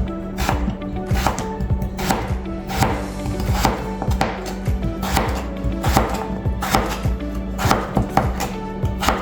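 Kitchen knife cutting raw Yukon gold potatoes into fries by hand, each cut ending in a knock on the cutting board, about once a second, over background music.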